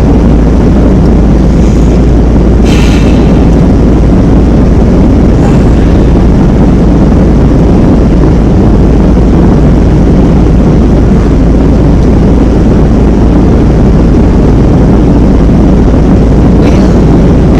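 Steady, loud vehicle road noise: a continuous low rumble without breaks.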